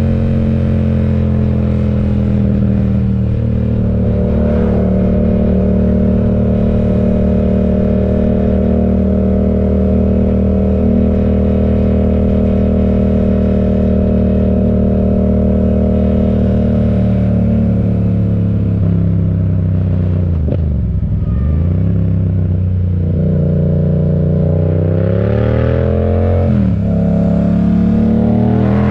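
Yamaha MT-07's parallel-twin engine through an M4 aftermarket exhaust, ridden at steady revs for most of the time. About two-thirds through the revs fall away and dip sharply, then climb again under acceleration, with a short break in the rise near the end like a gear change.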